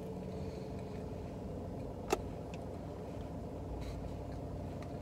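Steady low hum of a car idling, heard from inside the cabin, with one sharp click about two seconds in.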